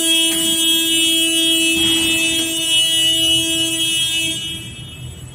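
Electric warning horn sounding one long, loud, steady note over machinery noise, fading out about four and a half seconds in.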